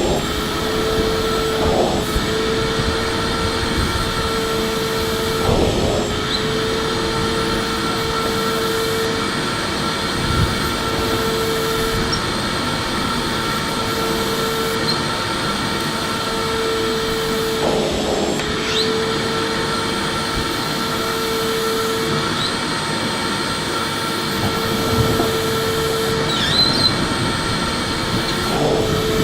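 Electric vacuum cleaner running steadily: a constant motor whine over rushing airflow, with a few brief surges in the noise now and then.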